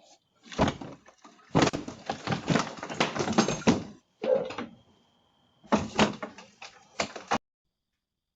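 A door being violently banged and rattled as a man tries to force it open, in repeated clusters of hard knocks. Heard through a doorbell camera's tinny microphone, the banging cuts off abruptly a little past seven seconds in.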